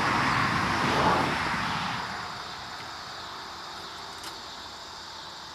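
A vehicle going past, its broad rushing noise loudest at first and fading away over about two seconds, leaving a quiet steady background.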